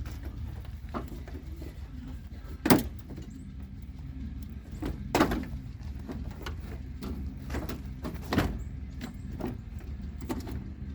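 Headlight assembly of a 2015 Chevy 3500 clunking and knocking as it is worked loose from the front end: three sharp knocks a few seconds apart among lighter clicks and rattles, over a steady low hum.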